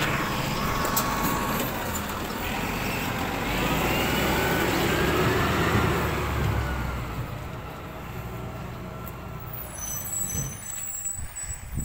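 Side-loader rubbish truck's engine pulling away, with a whine that rises and then falls over a few seconds. The sound then fades as the truck drives off down the street.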